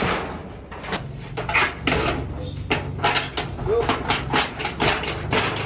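Irregular knocks and clatters, several a second, of objects being handled and struck around a building site, over a low steady hum, with voices underneath.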